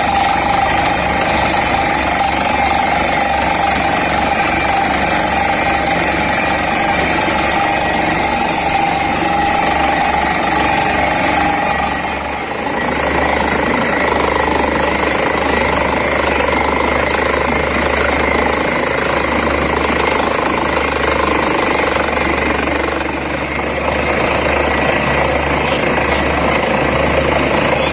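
Borewell drilling rig at work: the down-the-hole air hammer pounding rapidly under the steady noise of the rig's engine and air compressor. The sound shifts about twelve seconds in and again near the end.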